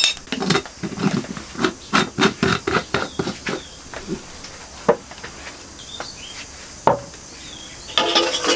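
A metal spoon knocking and scraping inside a glass jar as pickled jackfruit is pressed down, a quick run of clinks for about four seconds. Then come a few separate knocks and a short cluster of clatter near the end as the jar's plastic lid is put on and the jar is set down.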